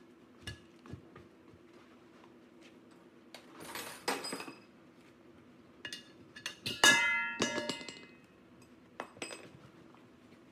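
Metal objects clinking and knocking against a steady low machine hum, with one loud metal clang that rings on for about a second, about seven seconds in, and a short rushing noise around four seconds in.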